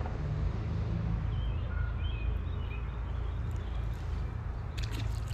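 Short bird chirps over a steady low rumble, with a brief cluster of clicks near the end.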